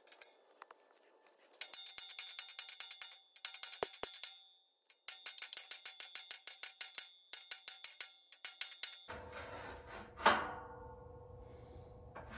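Hammer rapidly tapping a steel pallet rack upright to straighten it, about five taps a second in runs of one to three seconds with short pauses, each tap ringing metallically. About ten seconds in comes one heavier clanging strike with a long ring.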